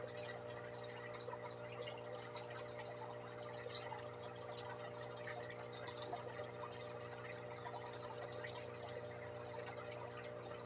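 Aquarium pump running with a steady hum, under a constant fine bubbling and trickling of water in the tank.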